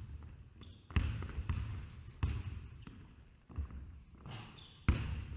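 Basketball dribbled on a gym's hardwood floor: four bounces about a second and a quarter apart, each ringing briefly in the hall, with short high sneaker squeaks between them.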